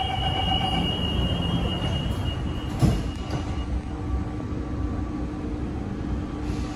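Kawasaki & CRRC Sifang CT251 metro train at a platform. A high steady tone sounds, the doors shut with a thump about three seconds in, and the tone stops shortly after. A steady hum then rises over the car's constant low rumble as the train gets under way.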